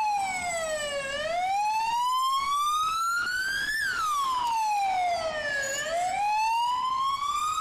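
Ambulance siren wailing, its pitch sliding slowly down and up in long sweeps: a fall, a long rise, a fall, and a rise again near the end.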